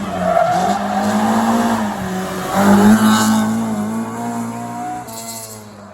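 Rally car engine accelerating hard. Its pitch climbs, drops back at a gear change about two seconds in and climbs again. It is loudest about three seconds in, then fades away as the car goes off down the stage.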